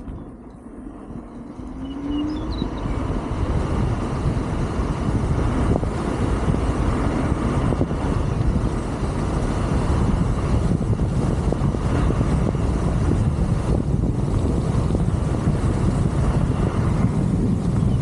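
Wind rushing over the microphone, with road rumble, from a Wolf King GT Pro electric scooter on the move. It swells about two seconds in as the scooter picks up speed, then holds steady. A brief rising whine comes just before the swell.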